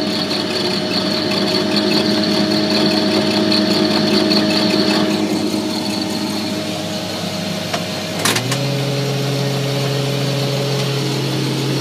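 Combine harvester engine running steadily, heard from the cab. About eight seconds in there is a sharp click and the drone changes to a deeper, steady hum as another drive comes on.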